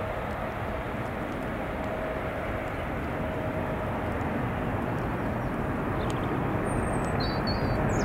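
Boeing 777 jet engines at take-off power as the airliner climbs away: a steady rumble and hiss with a faint humming tone, the low rumble growing louder toward the end. A few short bird chirps come in near the end.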